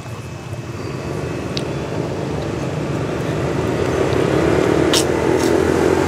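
A passing road vehicle's engine drawing nearer, growing steadily louder, with a couple of light ticks over it.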